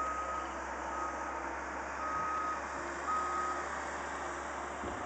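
Vehicle reversing alarm beeping at one steady pitch, four beeps about a second apart, which stop a little over halfway through, over a steady background noise.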